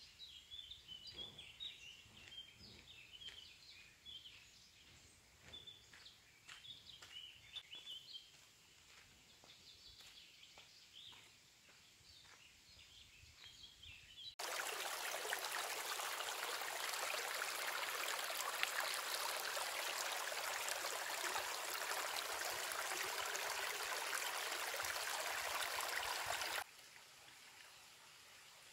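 Birds chirping faintly for about the first half. A sudden cut brings in the loud, steady rush of a shallow stream running over stones, which stops abruptly near the end, leaving only faint background.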